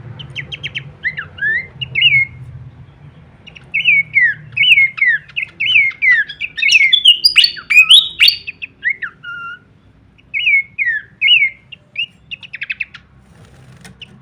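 Pelanduk semak, a babbler, singing: short clear whistled notes that slide downward, repeated in quick phrases. The song gets busier and louder in the middle with sharp clicks mixed in, and ends in a fast rattling series.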